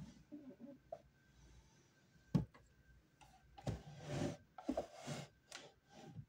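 A wooden dresser drawer and its contents being handled: a few small knocks, one sharp knock about two and a half seconds in, then a stretch of scraping and knocking as the drawer is moved.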